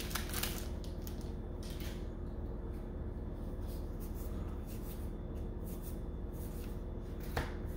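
Soft, scattered rustling and brushing of Magic: The Gathering cards being slid out of a freshly opened booster pack and sorted by hand, a few short strokes spread through, over a steady low hum.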